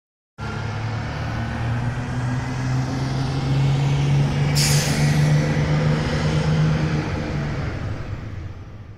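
City bus engine running with a steady low drone, with a short burst of air-brake hiss about four and a half seconds in; the sound fades out near the end.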